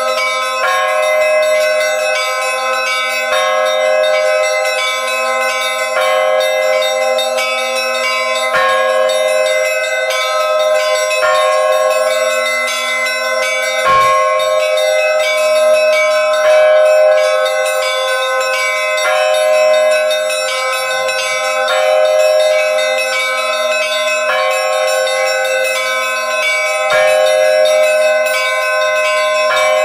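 Bells ringing continuously: many overlapping bell tones held steady, the mix shifting every couple of seconds, with an occasional faint click.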